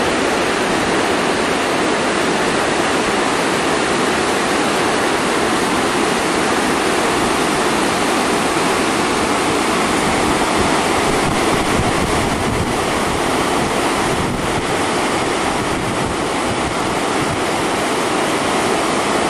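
Whitewater rapids of a creek rushing loudly and steadily, a continuous churn of foaming water.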